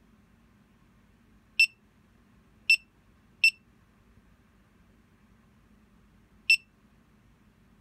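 Geiger counter kit's piezo buzzer giving short, sharp high-pitched beeps, four in all at uneven gaps, each one a count from its Geiger–Müller tube detecting radiation.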